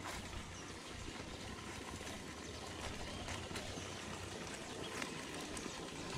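Steady outdoor background hiss with a few light, scattered ticks.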